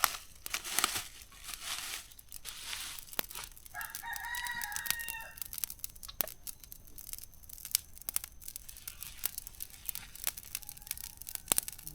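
A rooster crows once, about four seconds in, a single held call lasting about a second and a half. Scattered sharp crackles and rustling run through the rest.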